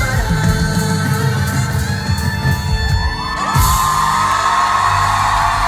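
Live pop band playing the closing bars of a song, ending with a loud final hit about three and a half seconds in. The audience then screams and cheers.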